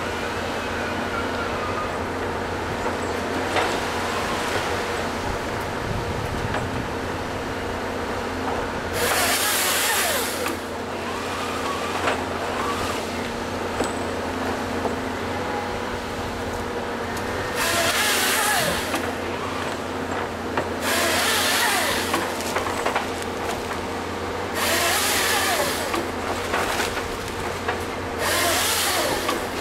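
Volvo EC210 excavator's diesel engine running steadily, with a shifting hydraulic whine, while a LogMax 7000XT harvester head feeds and delimbs a eucalyptus log. Five loud bursts of about a second each cut through it as the head's chain saw crosscuts the log.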